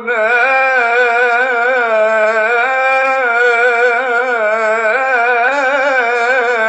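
Male voice singing an Islamic devotional hymn (inshad), drawing out one word in a single long melismatic line with quick wavering ornaments.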